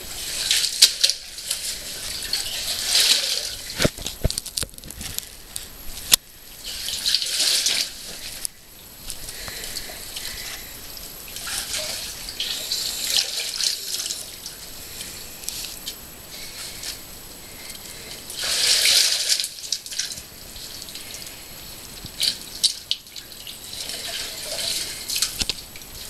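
Caver crawling through liquid mud and water: wet splashing and squelching in bouts of a second or two with short pauses between them, the loudest about nineteen seconds in, plus a few sharp knocks.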